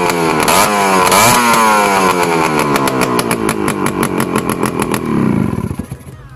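Yamaha RS 100's single-cylinder two-stroke engine being revved, the revs rising and falling, then winding down and dying away as it is shut off about five seconds in.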